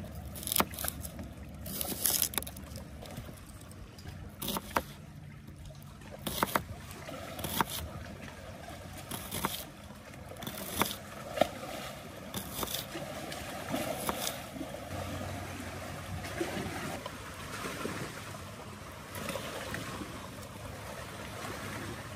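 Small knife slicing a shallot on a wooden cutting board: a dozen or so irregular sharp taps as the blade meets the board, then softer rustling as the slices are pulled apart into rings by hand.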